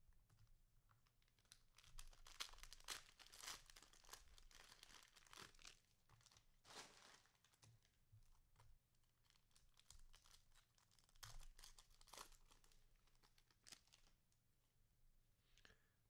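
Cellophane wrapper of a trading card cello pack being torn open and crinkled, in faint irregular bursts of crackling, twice over.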